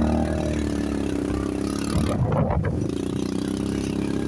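ATV engine running at a steady low speed, with a brief clatter about two seconds in.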